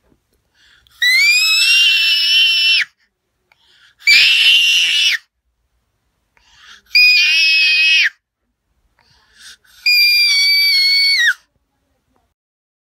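Four shrill, very high-pitched screams, each held for one to two seconds with silence between them. Each holds a fairly steady pitch and drops off at its end.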